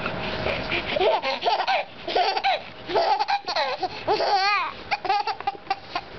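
Baby laughing hard in repeated bursts, with one warbling squeal about four seconds in.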